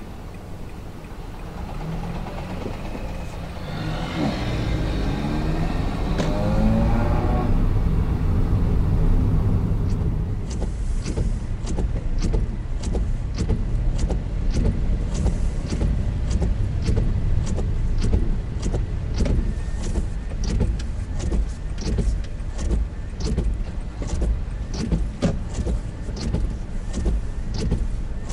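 A car engine accelerating, its pitch rising over a few seconds. Then steady low road-and-cabin rumble with sharp, evenly spaced ticks about twice a second.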